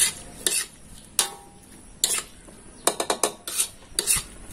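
Metal spatula scraping and knocking against a steel wok while stirring a stir-fry, in irregular strokes about once or twice a second, with a quick run of scrapes about three seconds in.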